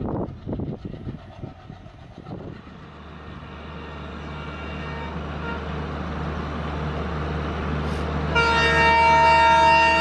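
Diesel train clattering over the rails for the first couple of seconds, then an approaching WDP4D diesel locomotive's rumble rising steadily as it nears. About eight seconds in its multi-tone air horn starts and sounds continuously, a loud chord of several steady notes.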